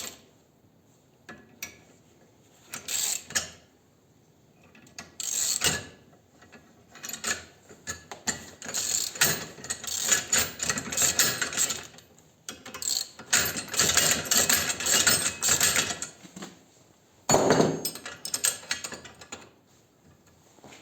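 A pulley puller being worked with hand tools to draw a stuck pulley off an engine shaft: bursts of rapid metallic clicking and ratcheting, the longest two running several seconds each in the middle, with short pauses between.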